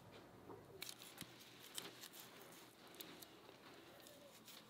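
Faint clicks and scrapes of a kitchen knife cutting up a raw chicken, a few short sharp ticks scattered through.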